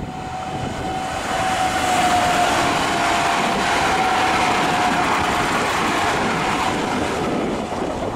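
Newag Impuls EN63A electric multiple unit passing at speed: wheel and rail noise swells over about two seconds and stays loud, with a whine that drops slightly in pitch as the train goes by, then fades a little near the end.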